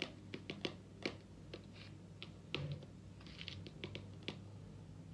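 Metal spoon clicking and scraping against a bowl while scooping powder: an irregular run of light taps that stops about four seconds in, over a faint steady hum.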